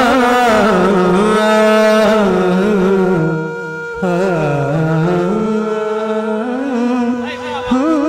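A man's voice singing Punjabi boliyan into a microphone: a wordless opening of long, wavering, drawn-out notes with a short break about three seconds in, over a steady droning tone.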